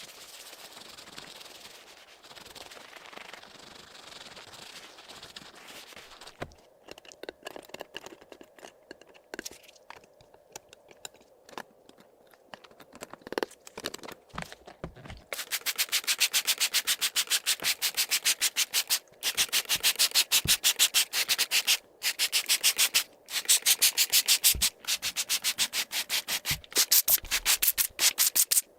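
A computer keyboard being cleaned. First a steady soft rubbing, then scattered small clicks and scrapes, then, from about halfway, fast rhythmic back-and-forth scrubbing strokes over the keys in runs with brief pauses.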